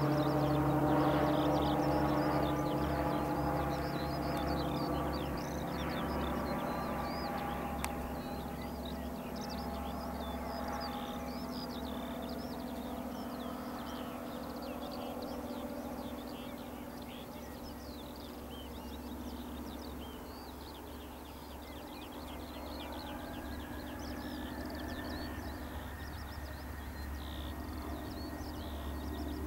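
Boeing 737-800's CFM56-7B jet engines running at low power on the runway, their tones fading over the first dozen seconds, then a whine rising in pitch and holding steady about three-quarters of the way through as the engines come up. Birds chirp throughout.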